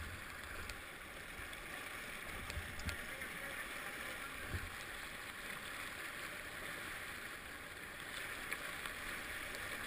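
Fast-flowing, swollen river rushing past at water level: a steady wash of water noise, with a few short knocks about three and four and a half seconds in.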